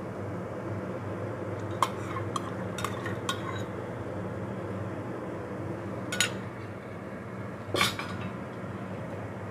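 Metal ladle stirring miso soup in a stainless steel pot, clinking against the pot's side about seven times, with the last clink near the end. A steady low hum runs underneath.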